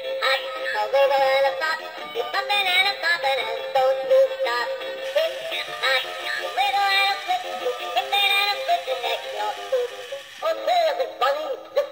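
Battery-powered animated Easter bunny toy playing its song through its small built-in speaker: a synthesized singing voice over a tune, thin and tinny with almost no bass.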